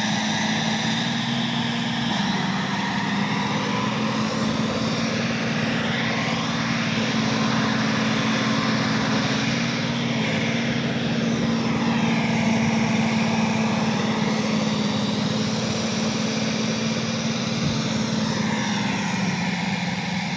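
Heavy diesel machinery running steadily: a deep, constant engine drone with a higher whine that rises and falls several times.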